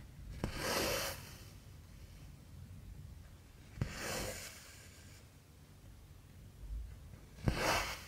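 Cotton embroidery thread pulled through 11-count cross-stitch fabric three times, about every three and a half seconds: each pull starts with a sharp tick of the needle and ends in a short swish of thread.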